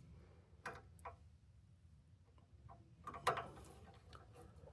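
Faint scattered clicks and taps of thermostat wires being fastened to the terminals of a thermostat base, with the loudest cluster of clicks about three seconds in.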